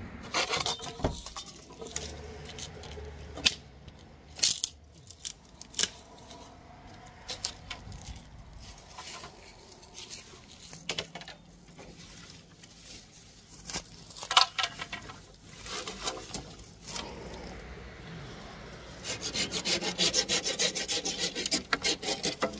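Dry bamboo poles knocking and scraping as they are pulled and handled, then, from about three seconds before the end, a hand saw cutting into a bamboo pole in quick, even strokes.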